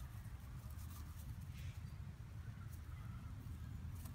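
Faint rustling and light scratches of kittens moving through grass and pawing at a cardboard box, over a low steady rumble.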